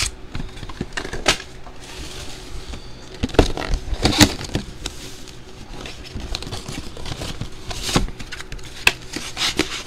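Cardboard trading-card boxes and stacks of foil card packs being handled and set down on a tabletop: a few scattered sharp taps and knocks, the loudest about four seconds in, over faint rustling.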